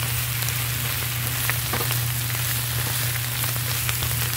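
Wild spinach leaves sizzling in olive oil in a frying pan while a spatula turns them, with a few faint clicks. A steady low hum runs underneath.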